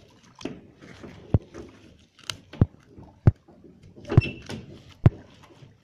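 Sharp, dull knocks on a boat's deck, about six at irregular intervals roughly a second apart, as a fish is handled and pulled from a gillnet, with soft rustling of the net in between.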